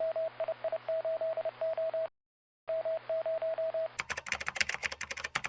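Radio-style signal sound: a single mid-pitched tone keyed on and off in short and longer beeps, like Morse code, over a low hum, with a brief break in the middle. About four seconds in it gives way to harsh crackling static.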